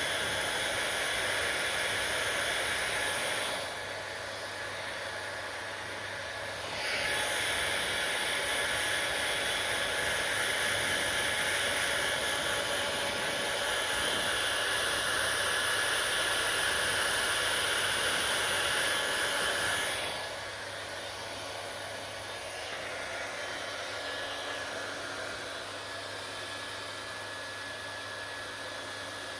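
Hair dryer running with a steady airy whoosh and whine. It drops in loudness and brightness about three seconds in, comes back about seven seconds in, and drops again about twenty seconds in.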